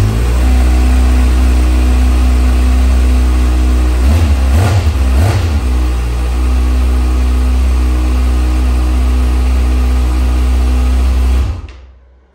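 2021 Kawasaki ZX6R's inline-four engine idling through its stock exhaust just after a cold start, unrevved. The note wavers twice about four to five seconds in, then the engine is switched off and the sound stops abruptly about a second before the end.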